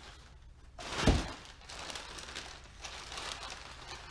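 Packing paper and plastic wrap rustling and crinkling as parts are pulled out of a cardboard shipping box, with one dull thump about a second in.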